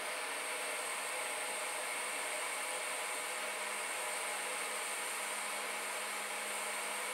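Gas burner flame hissing steadily under a metal tin of rosin flux, heating it to melt the rosin.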